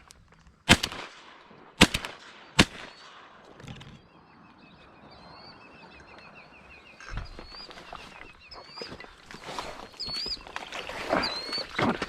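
Three shotgun shots fired in quick succession, each about a second apart, at ducks flying over. After them come thin, high, wavering calls.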